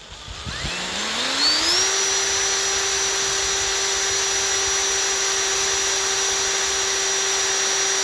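Small bench drill press running: the motor spins up with a rising whine over the first two seconds, then holds a steady high-speed whine while a 2 mm bit is driven through the sheet-metal contact strip of a G-scale track turnout.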